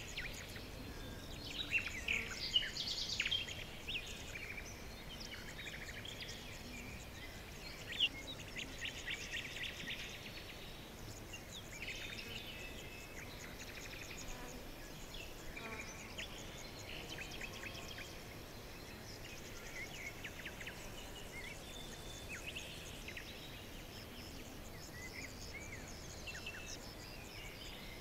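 Several small birds chirping and trilling, with sharp calls loudest a few seconds in and a fast trill about eight to ten seconds in, over a steady faint background hiss.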